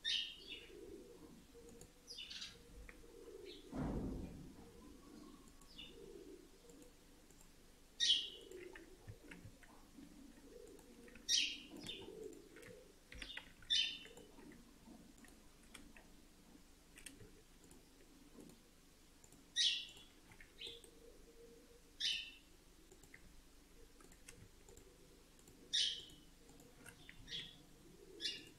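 Faint bird chirping: short single chirps every two to six seconds. A dull thump about four seconds in.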